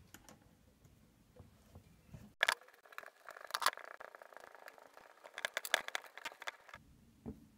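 Outer bearing cover being screwed by hand onto the threaded axle of a bicycle coaster-brake hub: a sharp metal click about two and a half seconds in, then a quick run of small metallic clicks and scraping for about four seconds.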